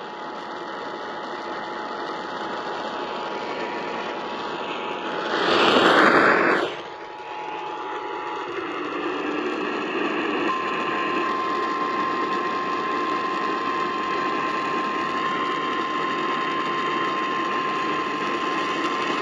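Radio reception full of static hiss, with a faint steady whistle and a short loud burst of noise about six seconds in. About ten seconds in, a steady single-pitch emergency alert tone starts and sounds through the static to the end, the attention signal that comes before a flash flood warning.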